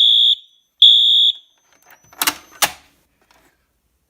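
Wheelock MT fire alarm horn strobe sounding two high-pitched beeps, each about half a second long, at the end of a temporal code 3 cycle. Two sharp clicks follow about two seconds in.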